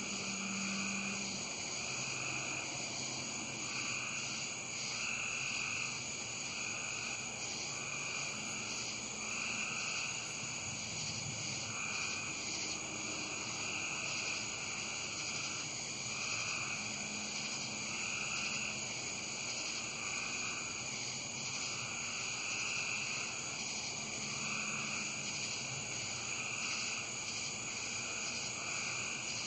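Frogs calling in a repeating chorus, about one call every two seconds, over a steady high-pitched trill of insects.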